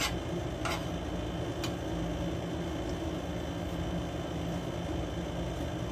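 Steady low machine hum, like a room air conditioner or fan running, with a few light clicks of dishes and cutlery in the first two seconds.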